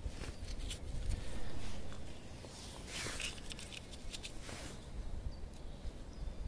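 Scraping, shuffling and crunching footsteps as a spot on the ground is cleared by hand and foot. There are scattered short knocks, a longer scrape about three seconds in, and a steady low rumble underneath.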